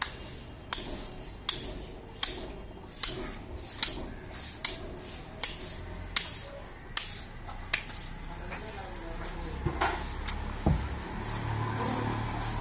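Knife strokes slicing the hide away from a hanging goat carcass as it is pulled down: about a dozen short, sharp rasping strokes, roughly one every three-quarters of a second. They stop about eight seconds in, leaving a low background rumble with a knock or two.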